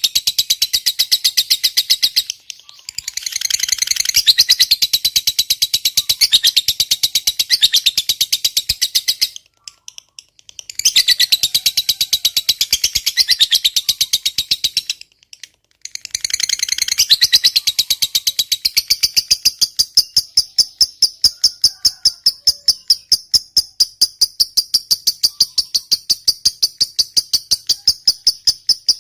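Lovebird in a long 'ngekek' chatter: a rapid, shrill run of calls, broken by short pauses about 2.5, 10 and 15 seconds in. From about 19 seconds it settles into an even series of high chirps, about three to four a second.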